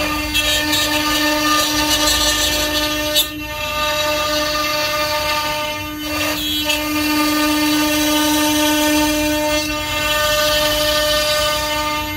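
An electric power tool's motor running with a steady whine, dipping briefly three times.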